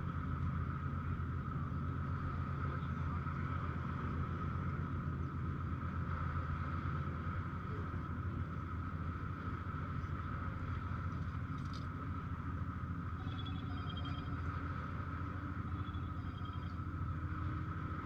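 Steady low engine drone with an even hum, with a few faint high chirps over it about two thirds of the way in.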